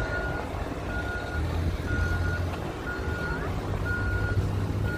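Vehicle reversing alarm beeping about once a second, each beep a steady high tone about half a second long, over a low rumble.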